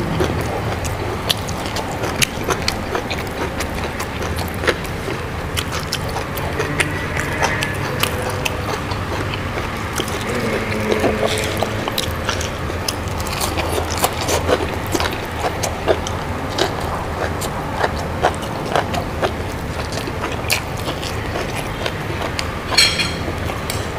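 Close-miked eating of crunchy food, mouth chewing and crunching: a steady run of irregular small clicks and crunches, with a louder burst near the end.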